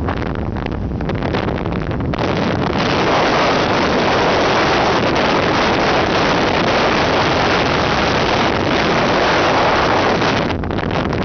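Strong wind buffeting the microphone over the rush of rough sea breaking along a ship's hull. The gusts strengthen about two seconds in and ease just before the end.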